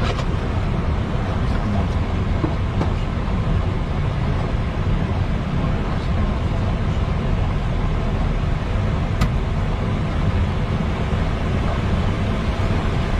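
Steady rumble and hiss inside a Boeing 737 cockpit on the runway, with the engines running, the windscreen wipers sweeping and rain hitting the windscreen. A few faint clicks stand out.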